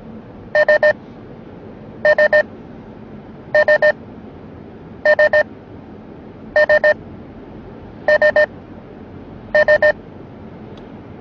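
An electronic alert in a moving car gives short triple beeps, a set about every one and a half seconds, seven times. Underneath is the low steady road noise of the car.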